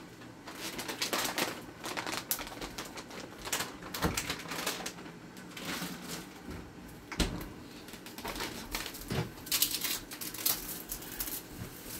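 Kitchen clatter: irregular clicks and knocks of utensils and containers being handled, with a few sharper knocks about four, seven and nine seconds in.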